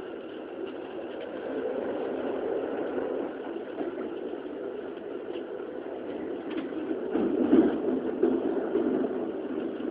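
Keikyu New 1000 series electric train running at speed, heard from inside the car: a steady rumble of wheels on rail with faint steady motor and inverter tones, swelling louder for a moment a little past the middle.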